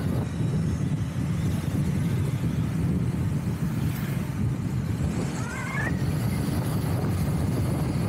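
Motorbike on the move: a steady low rumble of engine and wind buffeting the microphone. A brief rising tone sounds a little past the middle.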